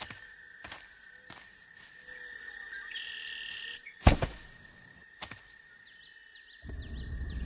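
Forest ambience: birds chirping over a steady high insect drone, with light ticks about every two-thirds of a second. A single heavy thud comes about four seconds in, and a low rumble rises near the end.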